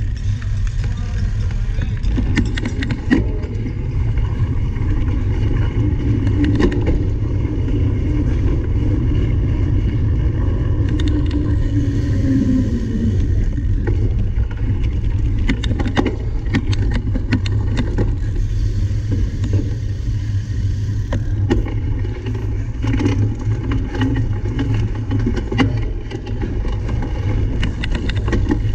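Cyclocross bike ridden over rough ground: steady low wind rumble on the microphone, with scattered knocks and rattles from the bike.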